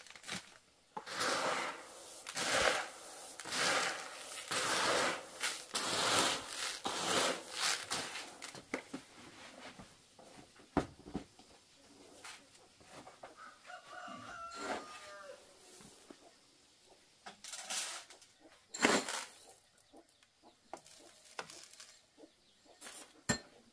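Dry corn kernels rustling in a plastic basin as they are stirred, in swishes about once a second for the first several seconds. A rooster crows faintly about halfway through, and a few knocks and clicks follow.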